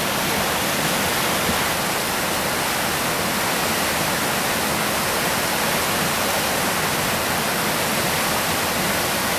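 Steady, loud rush of whitewater pouring through a rocky river rapid.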